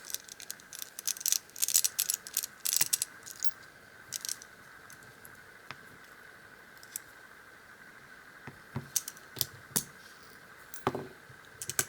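Small metallic clicks and scrapes of a brass padlock being taken apart with a hand tool while its screw and core are removed. A dense run of clicks comes in the first few seconds, then only scattered ones.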